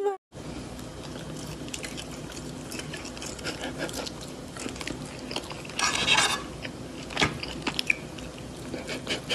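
Small clicks and light crunching of a cat biting food off a fork, over a steady room hum. A short rustling burst comes about six seconds in, and a few sharper clicks follow.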